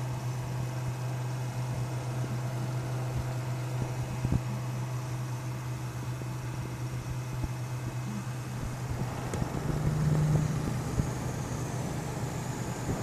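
Desktop computer's cooling fans running with a steady low hum and whir, with a few light knocks and a slightly louder stretch near the end.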